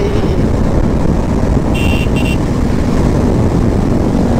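Steady wind and road noise of a moving motorcycle ride, with two short horn beeps close together about two seconds in.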